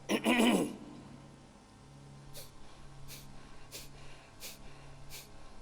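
A man's short voiced breath, then five short, sharp breaths through the nose, evenly spaced about two-thirds of a second apart.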